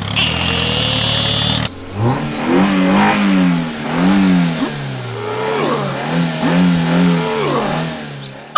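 An engine revving, its pitch rising and falling over and over, about once a second. A brief, different steady mechanical sound comes before it and cuts off under two seconds in.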